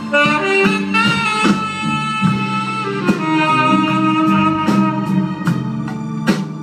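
Live Latin jazz band playing: a held, gliding melody line over a steady bass, with drum and cymbal hits every half second or so.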